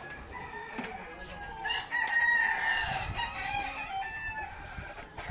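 Several caged gamecocks crowing, their calls overlapping at different pitches. The crowing is loudest about two seconds in.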